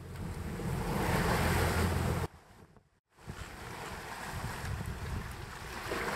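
Wind buffeting the microphone and waves rushing and splashing along the hull of a heeled wooden sailboat under reefed sail in rough seas. The sound drops away to almost nothing for under a second near the middle, then comes back a little quieter.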